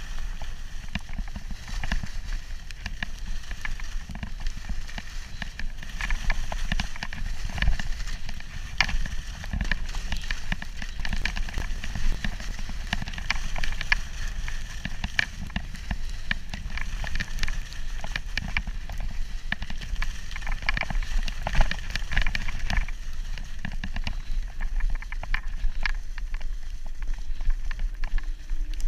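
Skis sliding and scraping over packed, rutted snow on a downhill run, with a continuous hiss and many small crackles, and wind rumbling on the microphone.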